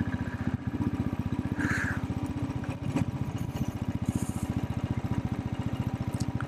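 Motorcycle engine running at low, steady revs, its exhaust beat an even, rapid pulse.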